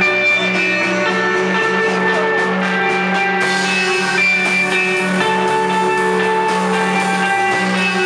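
Live rock band playing an ethereal stoner-rock passage: sustained electric guitar notes over bass guitar and drums, with the high end turning hissier about three and a half seconds in.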